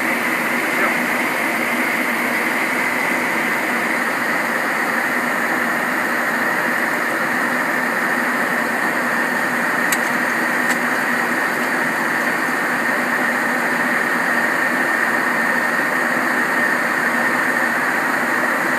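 Steady flight-deck noise of a Boeing 737-800 in flight: a constant rush of air and engine drone with a steady high whine over it, and a couple of faint clicks about halfway through.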